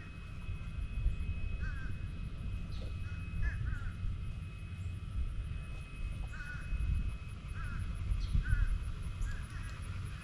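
Birds calling in short, repeated calls, about a dozen scattered through the stretch, over a steady low rumble.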